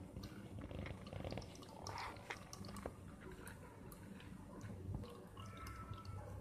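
Faint trickling and dripping of ground crab-leg liquid running through a mesh strainer into a stainless-steel bowl, with scattered light clicks.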